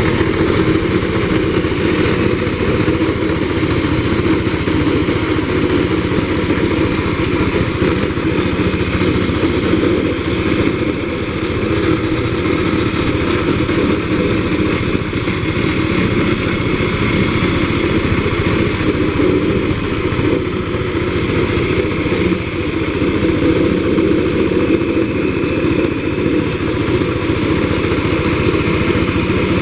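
Walk-behind road roller's small engine running steadily, with a slight dip in level twice.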